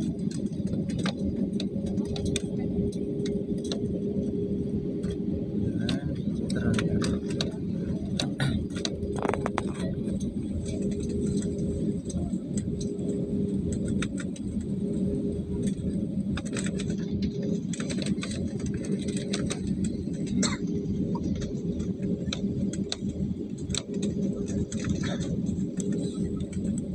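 Airliner cabin noise while taxiing after landing: the steady hum of the jet engines at idle over a continuous low rumble, with a steady tone running through it. Scattered clicks and rattles come from inside the cabin.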